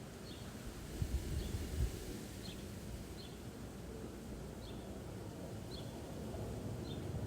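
A small bird repeating a short, high chirp about once a second over a steady low rumble of breeze and distant traffic, with a few louder low gusts about a second in.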